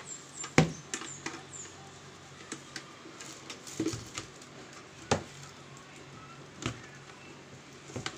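Hard plastic clicks and knocks as the plastic blowing pipe is handled and pushed onto the nozzle of an electric blower that is switched off. One sharp knock a little over half a second in is the loudest, with a few more knocks around four, five and seven seconds in.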